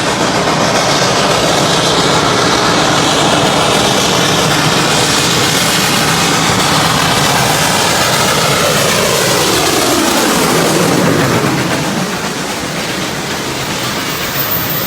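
A train passing close by with a loud, steady running and rail noise. A falling sweep in pitch comes as it goes past, and the sound eases off about twelve seconds in.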